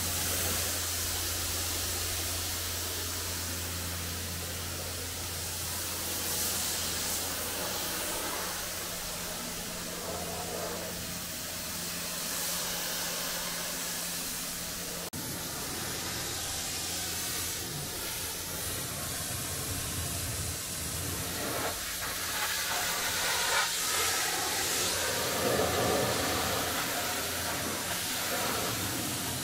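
Pressure washer spraying water onto a car, a steady hiss, with the washer's low motor hum underneath through the first half.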